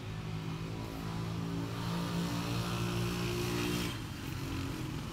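A steady engine hum that breaks off about four seconds in.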